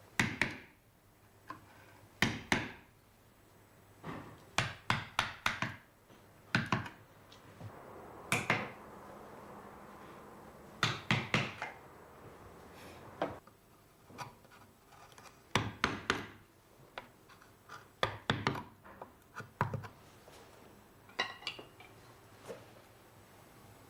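Hand hammer tapping a carving chisel into Japanese whitebark magnolia wood: irregular sharp strikes, often in quick runs of three to five, with short pauses between runs.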